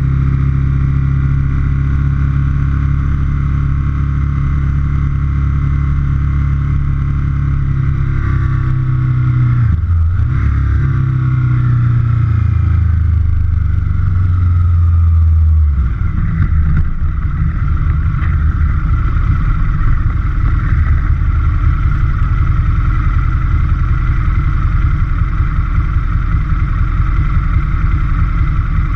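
2004 Aprilia Futura's 998 cc V-twin engine, heard close up, running at a steady cruise. The engine note falls as the bike slows, dipping around ten seconds in. From about halfway on it settles into a lumpy idle as the bike waits at a red light.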